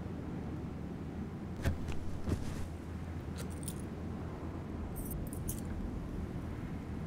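A steady low hum with a couple of soft knocks about two seconds in, then short bursts of light metallic clinking and jingling twice.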